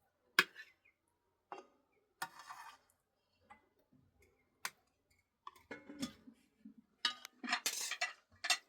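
Scattered clinks and knocks like dishes or utensils being handled, with short rustling bursts between them and a denser run of clatter near the end.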